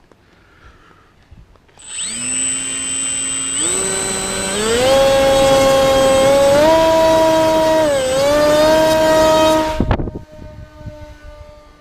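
Small brushless electric RC plane motor, a 2208 1800kv outrunner on an ESC, spinning up its propeller: a loud whine with a high steady ESC tone, rising in several steps of throttle and dipping briefly. A sharp thump about ten seconds in, after which the motor whine carries on fainter and sinks lower.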